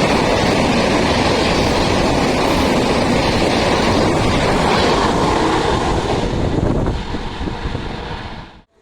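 A train passing at close range, its wheels rumbling on the rails in a loud, steady rush. The noise drops away about seven seconds in, then cuts off suddenly near the end.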